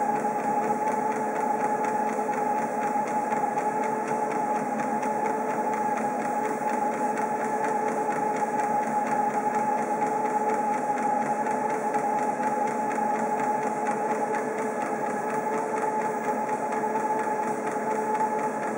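Treadmill motor and belt running steadily under a walking dog, a constant mechanical whine with two held tones.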